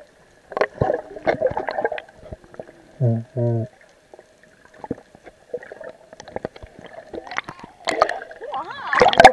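Water gurgling and crackling around an underwater camera, with many small clicks and a faint steady tone. About three seconds in come two short low hums, like a muffled voice, and the water noise grows louder near the end.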